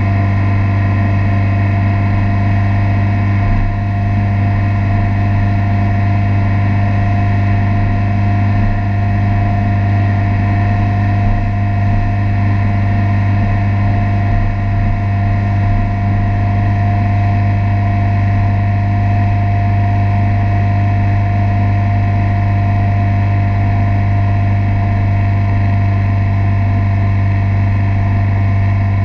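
Motorboat engine running steadily at towing speed, with the rush of the wake under the stern.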